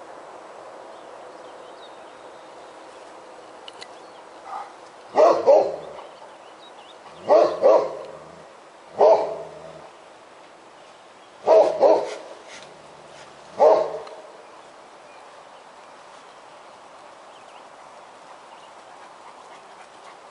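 Great Pyrenees barking at a black bear it has chased up a tree: about eight loud barks, mostly in pairs, starting about five seconds in and stopping around fourteen seconds in.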